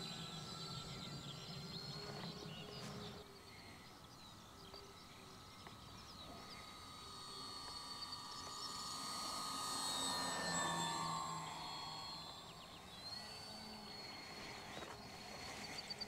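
The twin EMAX brushless electric motors and 11x5.5 propellers of a 1.3 m 3D-printed F7F Tigercat RC model whining faintly in flight. The sound grows louder as the plane passes about ten seconds in, and the pitch falls as it goes by.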